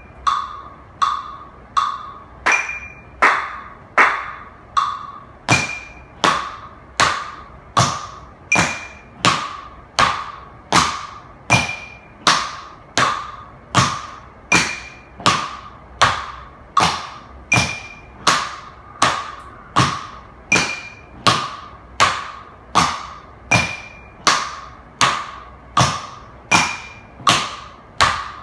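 Tap shoes striking a wooden studio floor in a steady, even rhythm of just under two strikes a second. Flat-foot stamps and toe taps repeat the basic side step stamp pattern, each strike sharp with a brief metallic ring.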